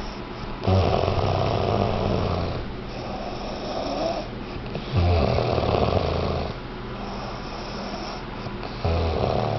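A person snoring: three loud snores about four seconds apart, with quieter breathing between them.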